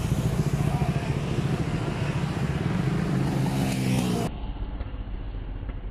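Several scooters and small motorcycles passing through a bend, their engines running loudly with one rising in pitch as it accelerates about three seconds in. A little past four seconds the sound cuts off abruptly to quieter, duller traffic noise.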